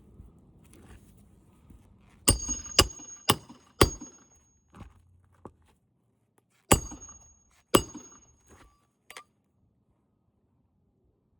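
Hammer striking nails: four quick blows about half a second apart, then a pause and two more, each with a short metallic ring.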